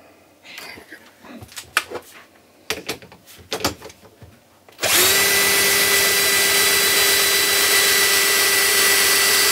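A few light clicks and knocks, then about halfway through a power drill starts abruptly and runs at a steady speed. The drill is turning the small vertical mill's table feed, winding the vise along past a dial indicator.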